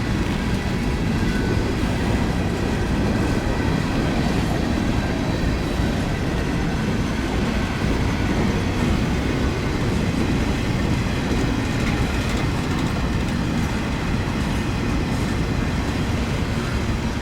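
Freight cars of a train rolling past at steady speed: a continuous low rumble with wheel clatter on the rails.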